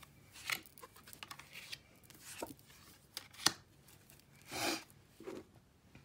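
Tarot cards being handled and laid down on a cloth-covered table: scattered soft slides and taps, with a sharper tap about three and a half seconds in and a longer swish about a second later.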